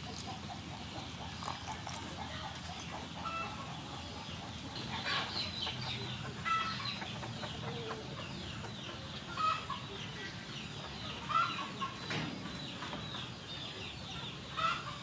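Chickens clucking, short calls every couple of seconds.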